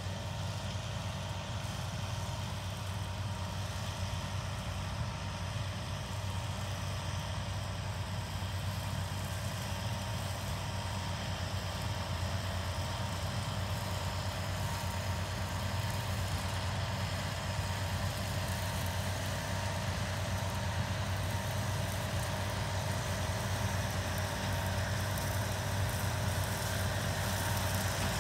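Seppi M. WBS flail mulcher and the tractor engine driving it, running steadily with an even, unbroken drone.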